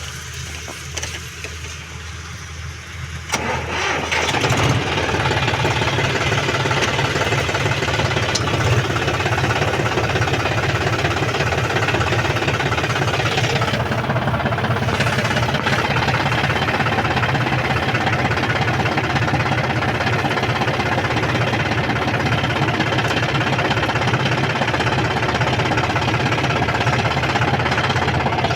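John Deere combine harvester's diesel engine: a lower hum that jumps much louder about three to four seconds in, then runs loud and steady.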